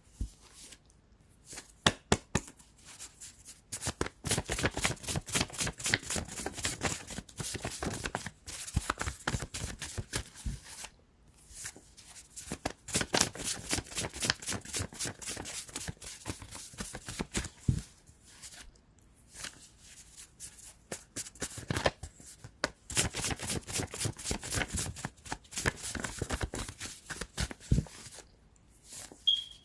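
Tarot cards being shuffled by hand: long runs of quick clicks, broken by short pauses about ten seconds in and again near the end.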